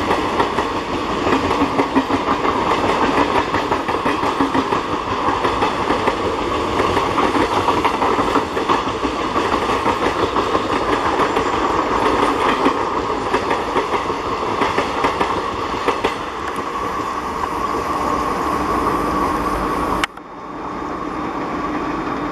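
Passenger train coaches passing close at speed: a steady rush of wheels on rail with rapid clickety-clack over the rail joints. About 20 seconds in it cuts abruptly to a quieter, more distant rumble of the train running away.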